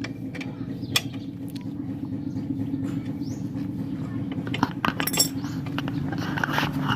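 Wrench clinking against the muffler mounting bolts of a Suzuki Smash as they are tightened: a few sharp metallic ticks, about a second in and again near five seconds, over a steady low hum.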